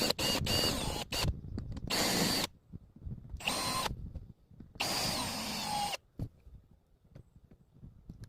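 Power drill running in four short bursts, trigger squeezed and released, then stopping about six seconds in.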